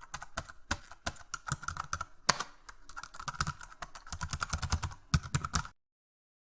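Fast typing on a keyboard: a quick, uneven run of key clicks, with one louder keystroke a little over two seconds in. It stops abruptly near the end, into silence.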